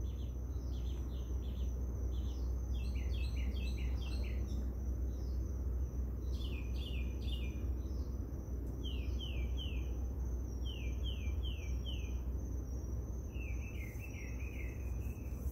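Outdoor night chorus: short falling chirps come in runs of three or four every couple of seconds, over a steady high-pitched insect drone and a low hum.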